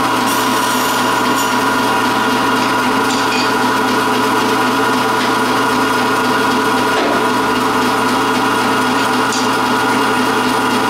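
A century-old 36-inch band saw running on a three-phase motor with a steady hum, as a wooden board is hand-fed through the blade and cut.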